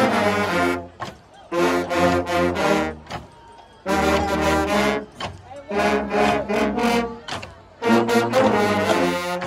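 High school band low brass section (trombones, baritone horns and sousaphones) playing a stand tune in unison, five punchy phrases of a second or so each with short gaps between them.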